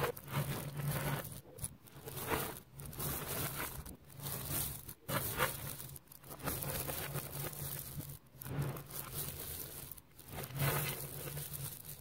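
Thousands of small neodymium magnet balls being squeezed, pulled apart and pressed together by hand. The result is a dense crackling, clicking rattle as the balls snap together and separate, coming in uneven surges with a few brief pauses.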